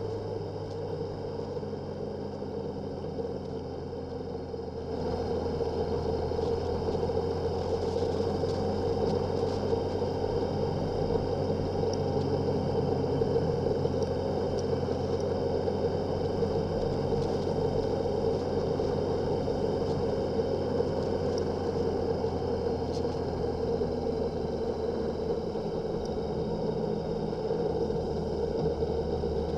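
Motorcycle engine running steadily while under way. It gets louder about five seconds in and then holds steady.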